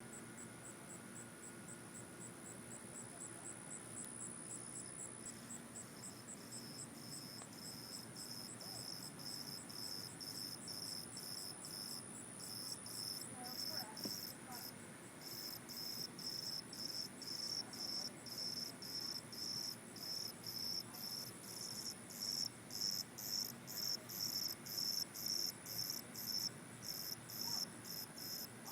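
Crickets chirping in an even rhythm, about two chirps a second, growing louder over time. A steady, higher-pitched trill runs alongside and stops about halfway through.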